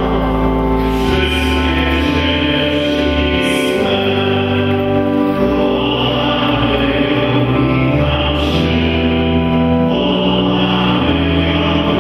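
A group singing a slow worship song together, with long held notes and chords that change every second or two over a steady low bass accompaniment.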